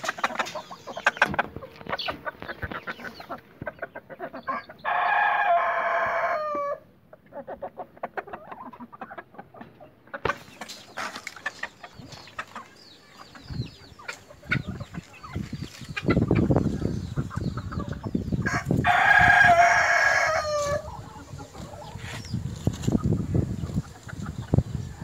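Roosters crowing twice, each crow lasting under two seconds and trailing off at the end, with softer clucking between. A low rumbling noise fills the second half.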